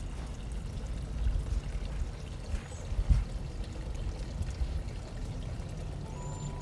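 Water trickling and pouring from a garden sphere fountain, a steady splashing over a low rumble, with a couple of dull thumps.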